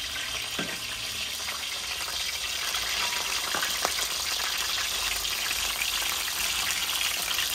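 Flour-dusted mullet pieces frying in hot oil in a large aluminium pot: a steady sizzle.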